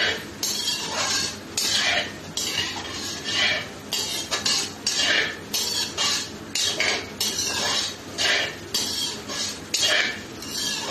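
A cooking spoon scraping and stirring around a kadhai in rhythmic strokes, about two a second, while whole cumin, fenugreek seeds and dried red chillies fry in hot oil.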